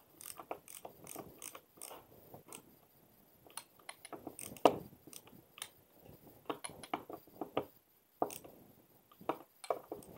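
Hand screwdriver driving a metal roofing screw into a solar-panel mini rail: a run of sharp clicks in small clusters as the handle is turned, with one louder knock about halfway through.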